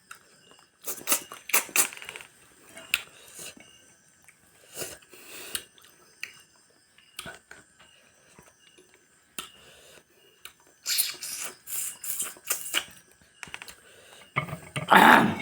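Close-miked eating sounds: chewing and crunching mixed with clicks of cutlery and dishes, in irregular bursts with quiet gaps. A louder burst comes near the end.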